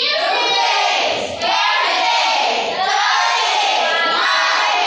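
A class of young children's voices together, loud and continuous, with many high voices overlapping at once.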